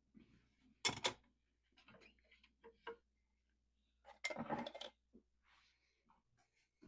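Dishes and kitchenware being handled while a dishwasher is unloaded: two sharp clacks about a second in, a few lighter clicks, then a short clatter lasting most of a second near the middle.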